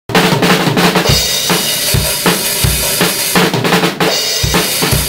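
Drum kit played hard, starting suddenly: kick drum beats under a continuous wash of crashing cymbals, with snare strikes in between.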